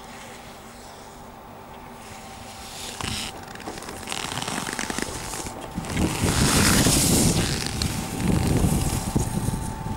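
Ski edges carving and scraping on hard-packed snow, a crackling hiss that grows louder as the skier nears and is loudest in two turns in the last four seconds.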